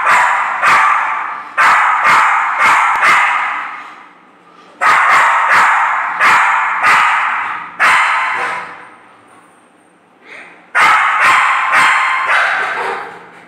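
Spitz dog barking angrily in rapid volleys, about two barks a second, with two short pauses between the volleys.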